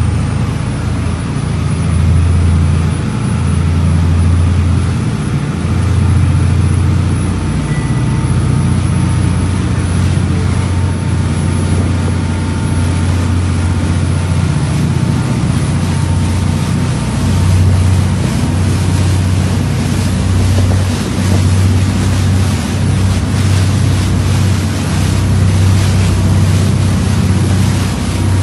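Boat engine running steadily with a deep low rumble that swells and eases slightly, with wind and water noise over it.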